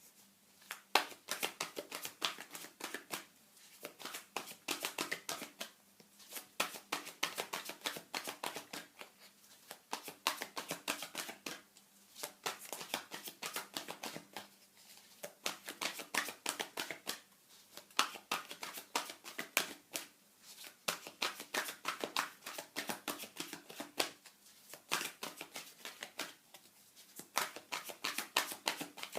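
Tarot cards being shuffled by hand: a dense run of quick card-on-card clicks and slides, with a few brief pauses.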